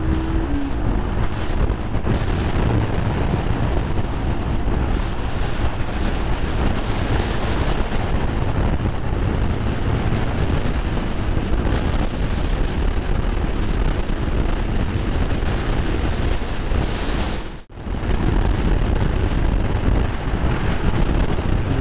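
Wind rushing over the microphone of a moving motorcycle, a loud, steady roar that covers the engine and road noise. The sound drops out for a moment near the end.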